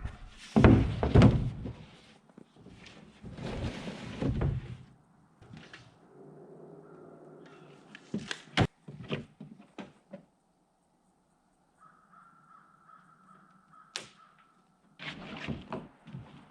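Construction work: two stretches of rough, loud knocking and scraping, then scattered single knocks, one sharp one about halfway through.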